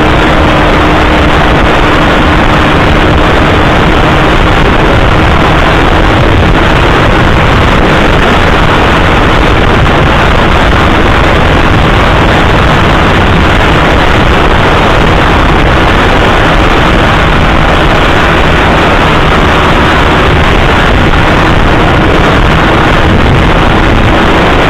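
Honda Winner X motorcycle's 150 cc single-cylinder engine held at high speed, mixed with heavy wind rushing over the microphone. Loud and steady, with no change in pitch.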